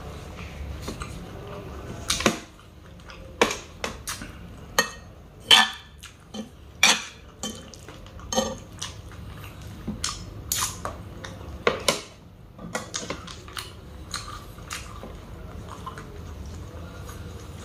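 Two metal spoons clinking and scraping against a plate as chicken sisig is scooped up, a quick string of sharp clinks that thins out and goes quieter for the last few seconds.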